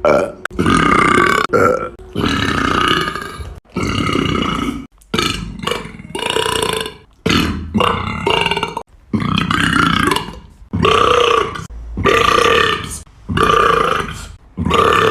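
A person burping loudly, about a dozen long burps one after another with short pauses between them.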